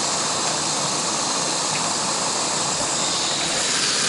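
Lit Primus lantern and Primus camp stove burners hissing steadily and evenly.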